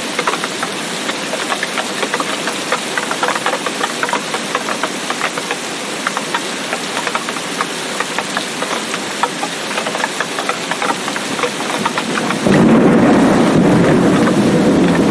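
Heavy rain falling in a tropical rainforest, with many separate drops hitting close by. About twelve seconds in, a deep rumble of thunder sets in suddenly and louder over the rain.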